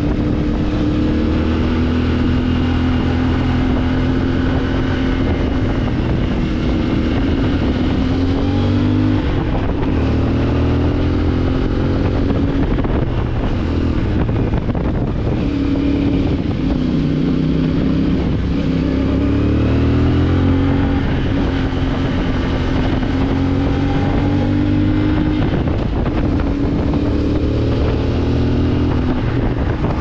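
CFMOTO 450MT motorcycle's parallel-twin engine pulling the bike along, its revs rising and falling with the throttle and gear changes. The revs dip about nine seconds in and climb again from about sixteen to twenty seconds in.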